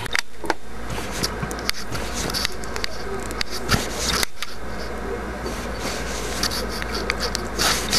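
LEGO pieces being handled: scattered sharp plastic clicks with rubbing and rustling, over a steady low hum.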